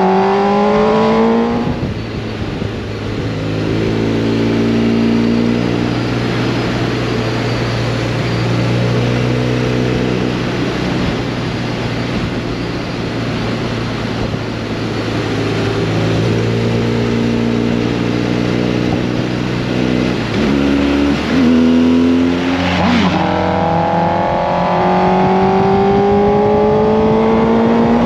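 Motorcycle engine under way: revs climbing at the start and dropping at a gear change about two seconds in, then a long stretch of steady cruising. Around twenty seconds in the revs drop and blip a few times, then rise steadily to the end.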